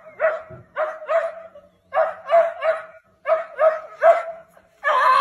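Small dog barking repeatedly at a cat, sharp barks in quick runs of two or three. A louder, longer sound cuts in near the end.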